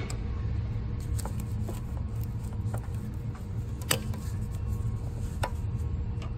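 An Allen wrench working the screws on an aircraft tug's metal cradle as they are loosened: a few scattered sharp metal clicks, the loudest about four seconds in. A steady low rumble runs underneath.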